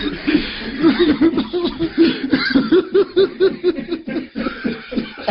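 A person laughing hard: a run of quick, rhythmic, pitched laughs, about three or four a second.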